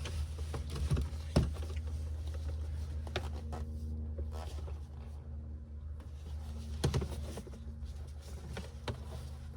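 Scattered light clicks and knocks of plastic dash trim being handled and set aside, over a steady low hum.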